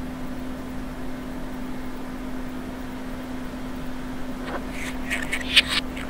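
A steady hum with a background hiss. About four and a half seconds in, a budgerigar starts chattering in quick high chirps, played in reverse.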